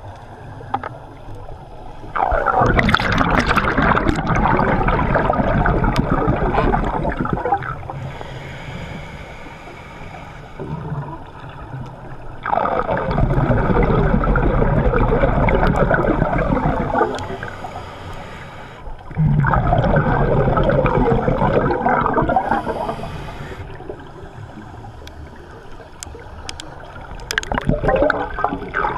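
A scuba diver's exhaled breath bubbling out of the regulator underwater, in four long bursts a few seconds apart, with quieter stretches between breaths.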